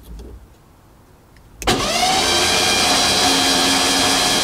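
Ford F-150 starter cranking the engine, which has its spark plugs out and so spins over freely without compression: a steady, even whir that kicks in suddenly about a second and a half in.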